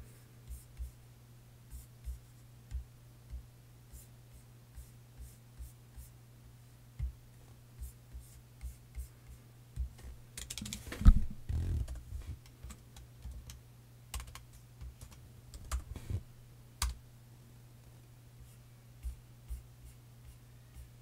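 Computer keyboard being typed on in short, irregular clicks, with a louder rustling bump about eleven seconds in, over a steady low hum.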